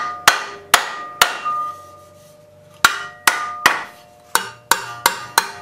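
Ball-peen hammer striking a metal strip laid on the anvil of a heavy bench vise, bending it to a right angle: about ten ringing metal-on-metal blows, three quick ones, a pause of about a second and a half, then a faster run of seven.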